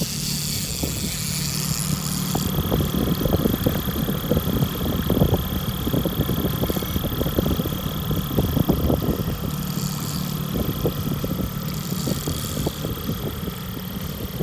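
Boat engine idling at low speed, a steady low hum, with irregular thumps and rustling over it.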